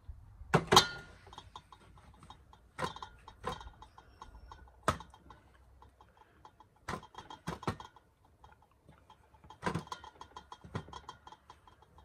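Knocks and light taps from handling food and a jar on a folding camp table: a sharp knock about a second in, then scattered knocks and faint ticks as floury lamb shanks are moved and turned on a plastic cutting board.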